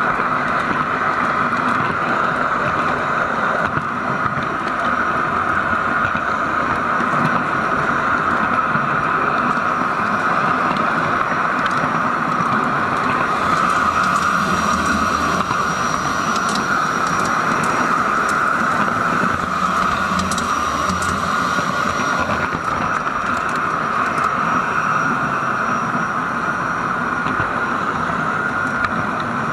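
LGB garden-railway train running steadily along the track, its wheels and motor making a continuous rolling, whirring noise, heard from a camera riding on the train. A faint high tone joins in during the middle stretch.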